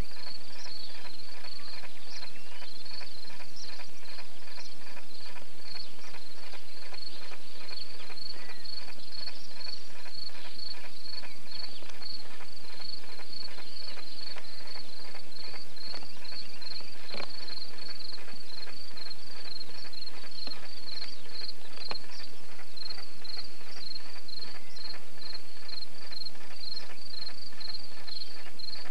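A cricket chirping steadily in a high, evenly repeating rhythm, with faint birdsong now and then.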